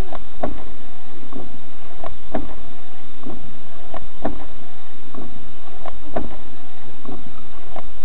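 The windshield wiper of a car wrecked in a head-on collision keeps sweeping. It knocks at each end of its stroke about once a second, the stronger knock about every two seconds, with a squealing rub of the blade in between.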